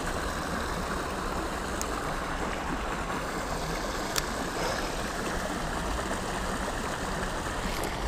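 Creek water rushing steadily through a small spill of whitewater, with a couple of faint ticks about two and four seconds in.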